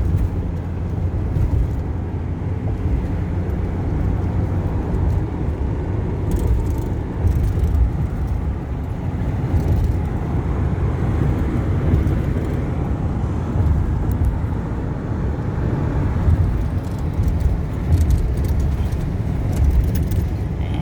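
Ford Econoline E-250 van driving at road speed: a steady low rumble of engine and tyres on the road, heard from inside the van.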